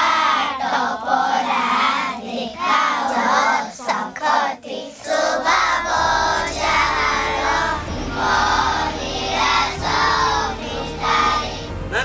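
A group of children singing a song together in unison. A low steady hum comes in about halfway through.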